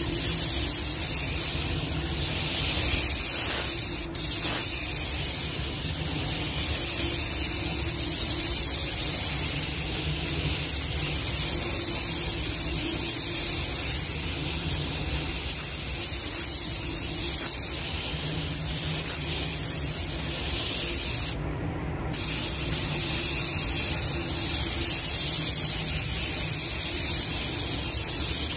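Air paint spray gun hissing steadily as it lays down the first coat of basecoat colour. The spray briefly stops about three quarters of the way through, then resumes.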